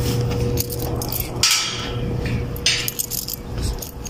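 Metallic jangling and clinking, with sharp rattles about one and a half and two and a half seconds in, over a steady low hum.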